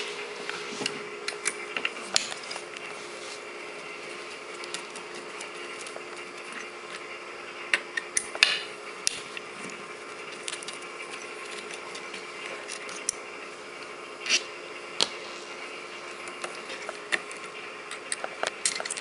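Small metal clicks and taps of a hex key and screwdriver working on the receiver of a GHK AKMS gas-blowback airsoft rifle, freeing the hop-up chamber. A cluster of louder clicks comes about eight seconds in, with single ones near fourteen and fifteen seconds, over a faint steady hum.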